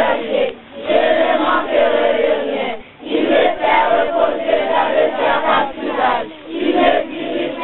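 A group of children singing together in phrases, with short pauses between them.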